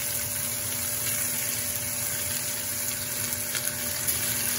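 Mangrove snapper fillets sizzling in hot oil in a nonstick frying pan: a steady hiss with faint crackles, briefly louder near the end as another fillet is laid in.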